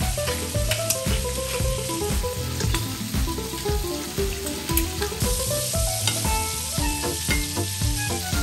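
Shrimp sizzling and crackling in butter and olive oil in a stainless steel frying pan, turned with tongs partway through. Background music with a melody and a steady bass line plays underneath.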